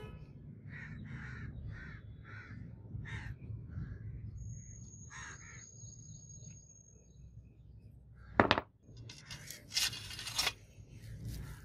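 Crows cawing, several short calls in quick succession. About two-thirds of the way in there is a single sharp clack, and just after it a second or so of metal rattling and scraping as the sword's cast cross-guard, pommel piece and blade are handled.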